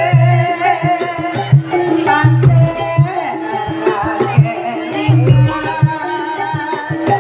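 Javanese jaranan music played live: sharp hand-drum strokes over a wavering melody line, with repeated held low gong-like tones.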